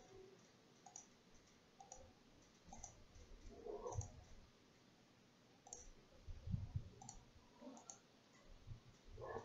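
Faint computer mouse clicks, a handful spaced about a second apart, with a couple of soft low thumps.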